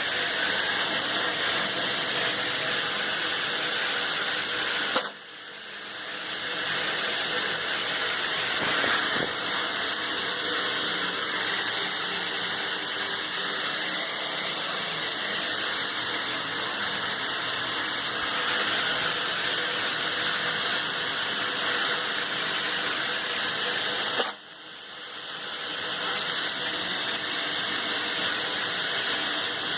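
Hot shower running steadily, with a cat sneezing twice, about five seconds in and again about 24 seconds in. The sneezes come from a Bordetella respiratory infection.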